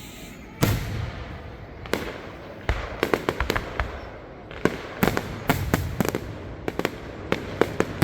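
Aerial fireworks going off: a deep boom about half a second in and another near two seconds, then quick clusters of sharp crackling pops through the rest.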